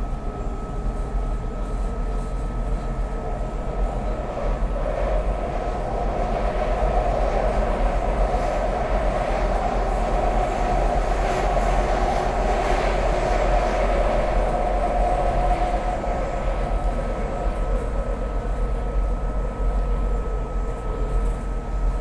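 SEPTA Market-Frankford Line train running between stations, heard from inside the car: a steady rumble of wheels on rail with a constant high whine, louder through the middle and easing a little near the end.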